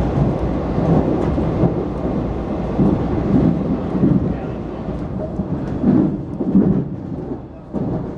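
Washington Metrorail train running at speed, heard from inside the car: a steady low rumble of wheels on rail that swells and eases, dipping briefly near the end.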